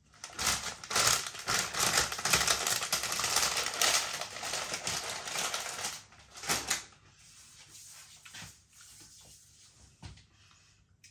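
Lorenz Crunchips potato crisps being chewed: a dense run of rapid crackling crunches for about six seconds, a short burst of crunching, then fainter scattered crunches near the end.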